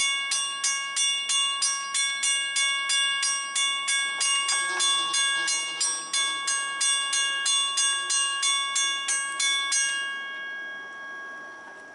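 Railroad grade-crossing warning bell ringing steadily at about three strikes a second, warning of an approaching train. It stops about ten seconds in and rings out.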